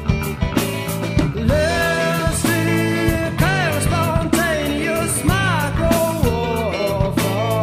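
Rock song by a band: a voice sings a melody that arches up and down in pitch over drums, bass and guitar.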